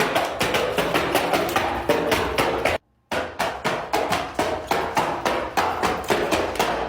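Bubbles of a giant silicone pop-it fidget toy being pressed in quick succession, giving sharp pops several times a second, with a brief break about three seconds in.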